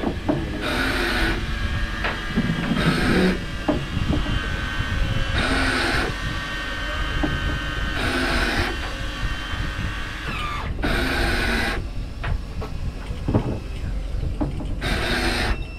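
Fishing boat at sea: a steady low rumble with a short burst of hissing noise about every two to three seconds, six times.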